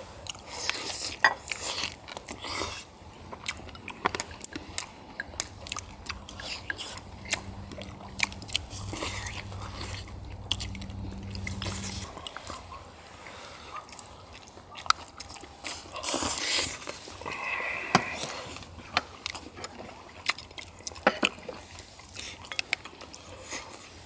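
Close-up eating sounds of people chewing and biting into braised chicken and webfoot octopus, with scattered light clicks of chopsticks and bowls.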